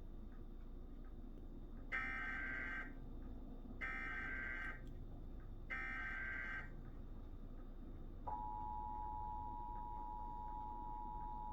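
Emergency Alert System test broadcast: the SAME header's screeching data tones are sent three times, each burst just under a second long with about a second between. About eight seconds in, the steady two-tone attention signal (853 and 960 Hz) begins and holds.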